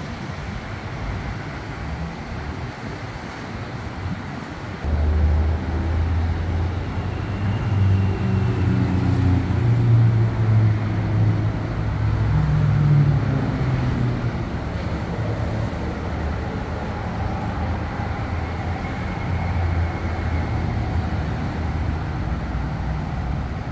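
Diesel train engine running nearby, a low drone that comes in suddenly loud about five seconds in and holds, shifting in pitch, over steady traffic rumble.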